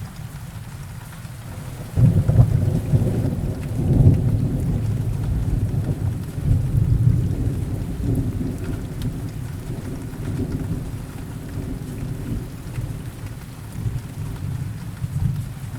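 Steady rain with rolling thunder. A deep roll of thunder breaks in suddenly about two seconds in, swells again a couple of seconds later, then slowly fades into a lower rumble that keeps rising and falling.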